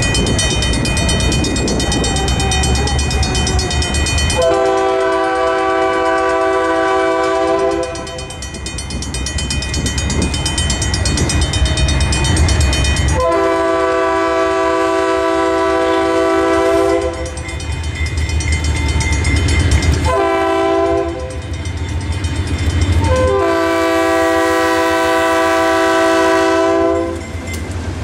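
Diesel locomotive horn blowing the grade-crossing signal as a freight train approaches: long, long, short, long, each blast a chord of several tones. Under it a Safetran mechanical crossing bell rings steadily, with a low rumble between the blasts.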